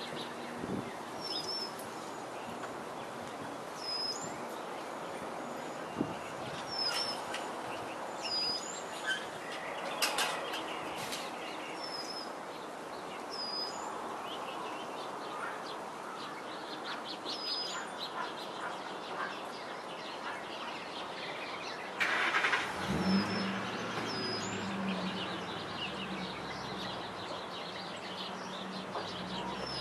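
Small birds chirping, short high calls repeating every second or few, over outdoor background noise. About 22 seconds in, a short burst of noise, then a Ford F250 pickup's engine running low and steady.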